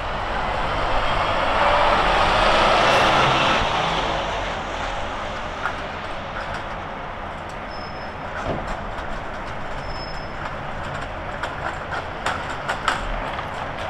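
Rushing rumble of a passing vehicle that swells over the first few seconds and fades away, followed by steady street noise with a few sharp taps near the end.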